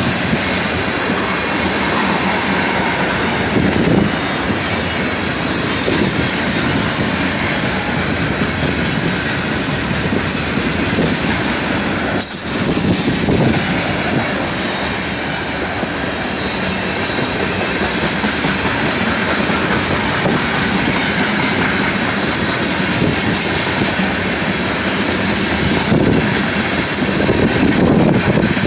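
Freight train cars rolling past at close range, wheels clattering steadily over the rail joints, with a steady high-pitched wheel squeal running through the rumble.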